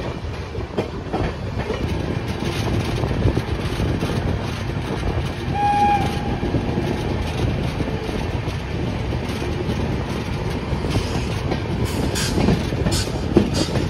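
Indian Railways express train running, heard from an open coach door: a steady rumble of wheels and rushing air, with a short horn note about six seconds in. Near the end the wheels clatter in sharp clicks over rail joints and points.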